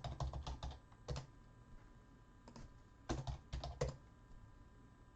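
Typing on a computer keyboard in two short runs of quick keystrokes, the second ending about four seconds in.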